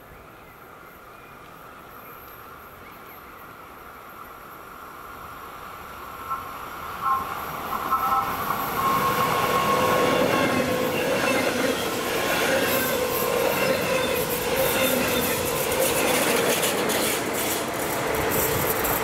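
Electric train approaching, growing steadily louder over about nine seconds, then passing close by with loud wheel-on-rail noise and rail clatter.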